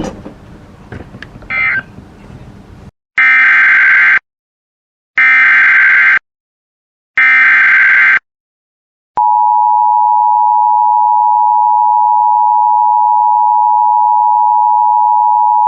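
Emergency Alert System SAME header: three loud one-second bursts of data tones, a second apart, marking the start of a new alert. About nine seconds in, the steady two-tone EAS attention signal begins and carries on. Faint low noise comes before the bursts.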